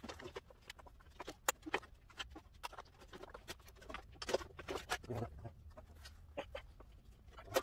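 Irregular light clicks, taps and rustles of hands fitting an electric condenser fan back into place in front of the radiator.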